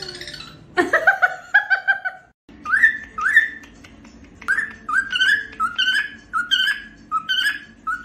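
Cockatiel chirping a quick run of calls, then, after a brief break, repeating a short rising whistle-chirp over and over, about twice a second.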